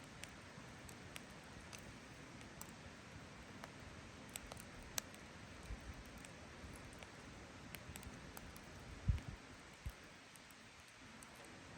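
Wood campfire crackling, with scattered sharp pops over a faint steady hiss. Two dull low thumps come toward the end.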